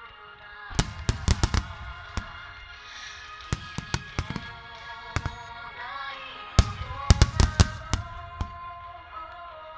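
Fireworks shells bursting in the sky: sharp cracks and bangs, in a quick cluster about a second in and a louder one about seven seconds in, with single bangs between. Music plays steadily underneath.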